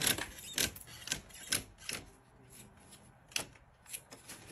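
Irregular short clicks and scrapes from a cat stuck between the panes of a sash window, shifting against the glass and frame. There are about eight sharp ticks over a few seconds, unevenly spaced.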